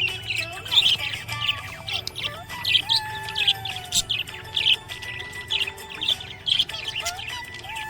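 Budgerigar chirping and warbling: a continuous run of short, high chirps several times a second, mixed with a few gliding whistled notes.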